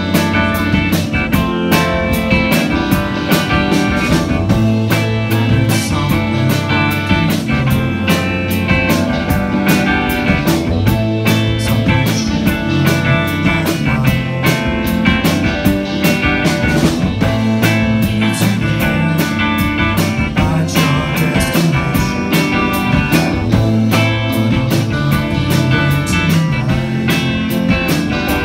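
Live rock band playing: electric guitars, electric bass and a drum kit keeping a steady beat over a repeating bass line.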